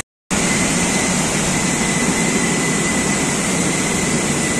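Steady, loud machinery noise of a bottling-line conveyor and the plant around it, with a thin constant high whine over the rumble. The sound drops out for a split second at the very start.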